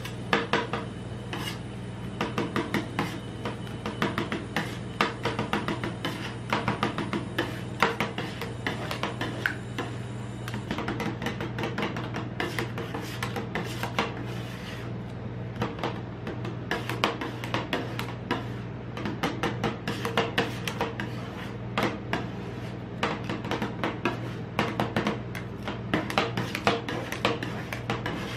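Metal spatulas on a steel ice-cream-roll cold plate: fast repeated chopping taps and scraping as a lump is chopped into the liquid cream base and smeared across the frozen plate. A steady low hum runs underneath.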